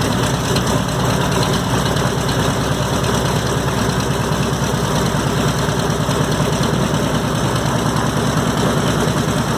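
The Pratt & Whitney R-2800 Double Wasp radial engine of a P-47D Thunderbolt running steadily at a low, even speed, with a dense rumble of rapid firing pulses.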